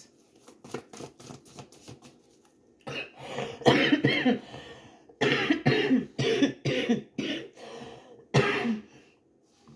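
A woman's coughing fit: after a couple of quiet seconds, coughs come in several bouts, a run of them in the middle and a last one near the end. She calls it a smoker's cough.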